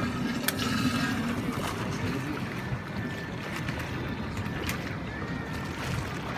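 Steady low rumble of wind and water around a small fishing boat on a lake, with a few sharp clicks.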